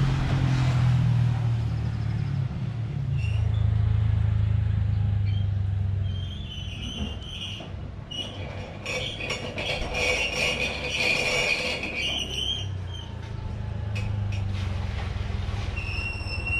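Motor vehicles passing on a nearby road: a low engine rumble that swells and fades, then swells again near the end. High-pitched squeaks come in short runs through the middle.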